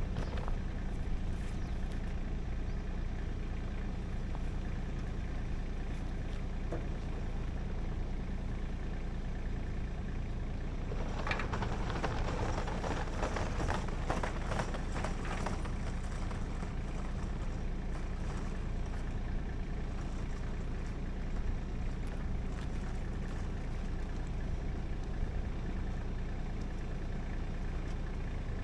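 An engine idling steadily. About eleven seconds in, a rough, noisy stretch lasts some four seconds over it.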